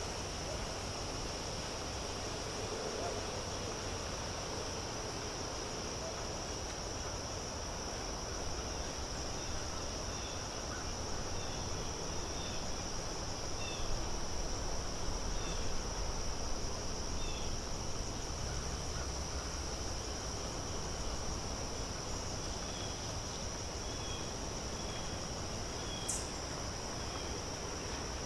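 Outdoor nature ambience: a steady, high-pitched insect trill runs throughout, with scattered short bird chirps and a soft background hiss. A single sharp click comes about two seconds before the end.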